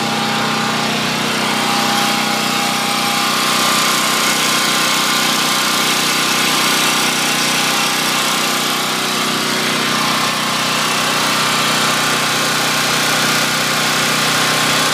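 Powermate 3,000-watt portable generator's single-cylinder OHV engine running steadily, brand-new on its first run.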